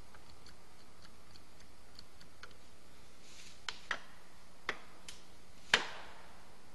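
Distant sharp knocks of a tool striking at the base of a tulip poplar being felled. A few faint ticks come first, then five sharper irregular knocks from about halfway on, the last the loudest with a short echo.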